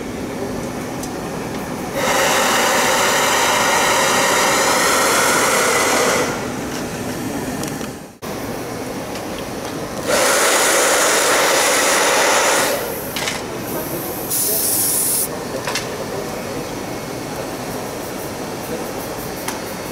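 Hair dryer blowing in two bursts, one of about four seconds and a shorter one of about two and a half seconds, over a steady background hum. A short high hiss follows a little after the middle.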